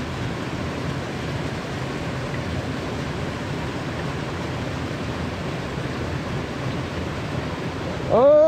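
Steady rush of a small mountain stream spilling over granite into a pool. Near the end, a person gives one drawn-out shout that rises and then falls in pitch.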